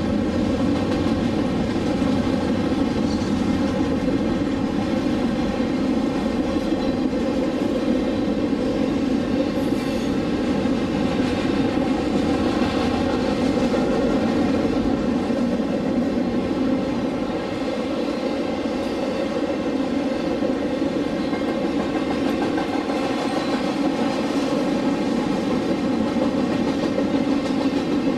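Cars of a CSX intermodal freight train (double-stack containers and trailers on flatcars) rolling steadily past, wheels running on the rails.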